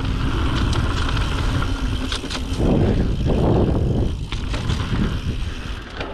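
Wind rumbling on a moving camera's microphone, with scattered clicks and rattles over it, easing off near the end.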